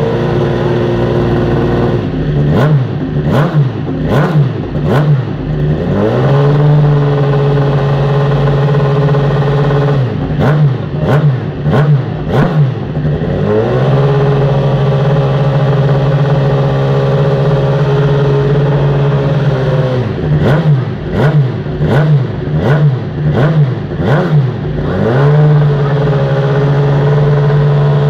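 Suzuki GSX-R1000 superbike's inline-four engine running on its stand, held at a steady raised idle and blipped in three bursts of several quick, sharp revs each.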